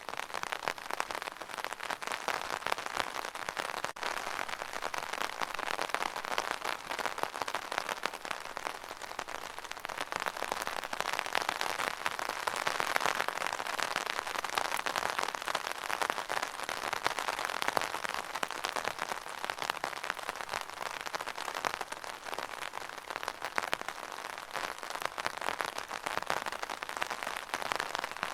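Steady rain falling on an umbrella: a dense patter of drops striking the taut fabric, swelling a little in the middle.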